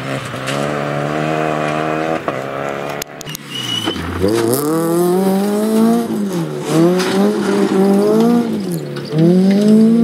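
Rally car engines at full throttle. First a car passes holding steady, high revs. After a cut, another car accelerates hard from low revs, climbing through the gears with two upshifts where the revs drop and climb again.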